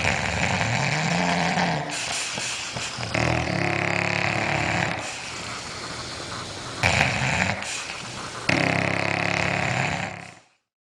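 A sleeping pet snoring: drawn-out snores repeat roughly every three seconds, then stop abruptly near the end.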